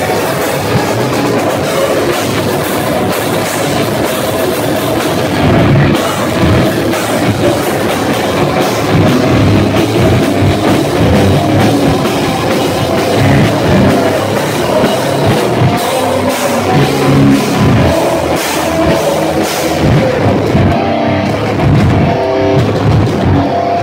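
Live heavy metal band playing loud: distorted guitars over fast, pounding drums, heard as a loud, dense wall of sound.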